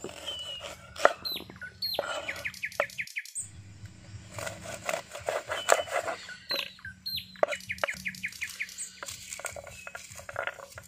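Steel cleaver chopping on a wooden cutting board: sharp, irregular chops, first slicing an onion, then after a short break chopping garlic cloves. Birds chirp throughout.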